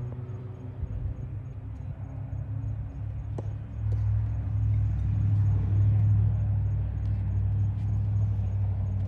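A steady low mechanical hum, like a motor or engine running, that grows louder about four seconds in, with a few faint clicks over it.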